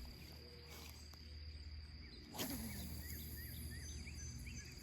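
Insects outdoors, probably crickets, keeping up a steady high drone. About halfway through there is a short rush of noise, followed by a string of short chirps.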